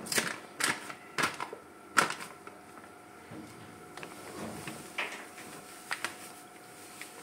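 Scattered sharp knocks and clacks of kitchen utensils and containers being handled while flour is added to the blended potatoes for halušky dough. There are about seven, the loudest in the first two seconds, over a faint steady hum.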